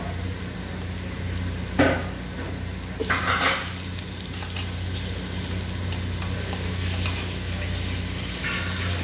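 Sliced onions and garlic sizzling in oil in an aluminium pot, with a steady low hum underneath. A sharp clack comes about two seconds in, and just after three seconds the sizzle flares louder as raw chicken strips go into the pot.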